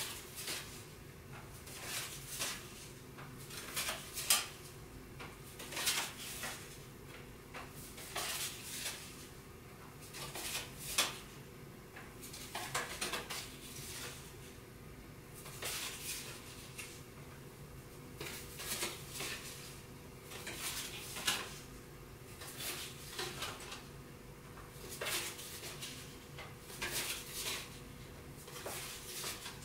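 Playing cards being handled and set onto a card house one at a time: short papery clicks and slides every second or two, over a faint steady hum.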